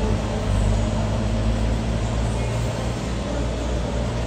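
Airliner jet engines running: a steady low rumble with a few faint humming tones over it.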